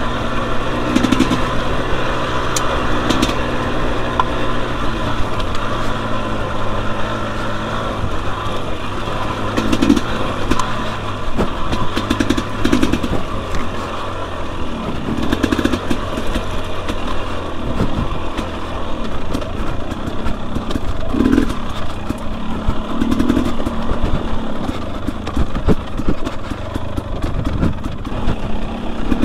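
2021 Husqvarna TE250i dirt bike's fuel-injected two-stroke single-cylinder engine running while being ridden, its pitch shifting up and down with the throttle. Frequent short knocks and clatter are heard over it.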